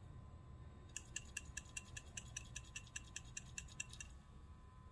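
A new Honda PCV valve shaken by hand, the check ball inside clicking back and forth in a quick, even run of light clicks, about six a second, from about a second in for some three seconds. The ball is moving freely: the sign of a clean, working valve.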